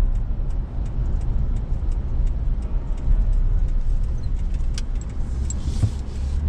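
Steady low rumble of engine and tyres inside a moving car, with light, irregular clicks and rattles.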